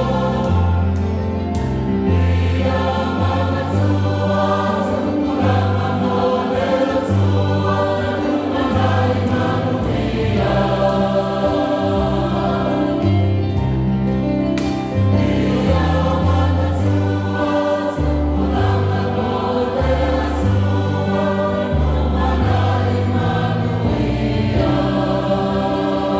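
Choral music: a choir singing with a steady bass line under sustained chords.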